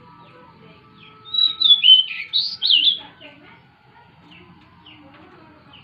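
Pied bushchat (decu) singing: one loud, quick warbling phrase of rising and falling high notes, starting about a second in and lasting about two seconds, with faint chirps before and after.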